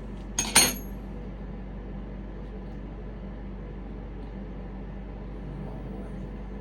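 Two quick sharp knocks about half a second in, the second with a brief high metallic ring, like a hard object striking metal or porcelain, followed by a steady low background hum.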